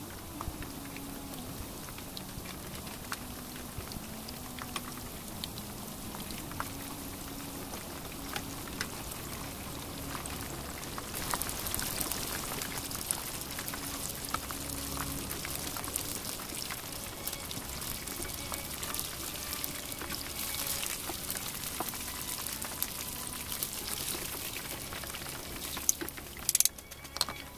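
Starch-coated mackerel pieces deep-frying in hot oil: a steady sizzle full of small crackling pops, which grows louder about eleven seconds in. Near the end there are a few sharp knocks as the fried pieces are lifted out with a mesh strainer and chopsticks.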